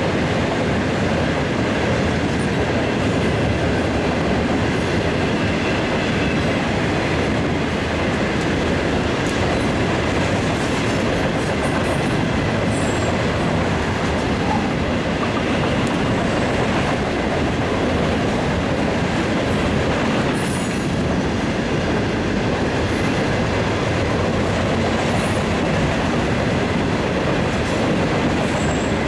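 Loaded freight cars rolling steadily past: a continuous heavy rumble of steel wheels on rail, with clickety-clack over the rail joints and a few short, high wheel squeals.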